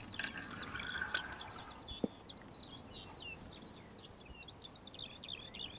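A small songbird singing a rapid, twittering run of short chirps, with one sharp click about two seconds in.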